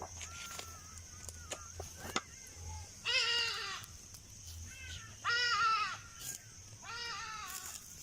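An animal calling three times, harsh drawn-out calls about two seconds apart, with a weaker call between the first two.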